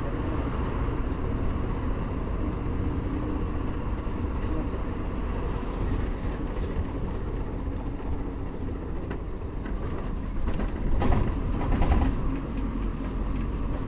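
A moving bus's engine drone and road noise, heard from inside the bus as a steady rumble with a low hum. Near the end it turns louder for about two seconds, with a run of knocks and rattles.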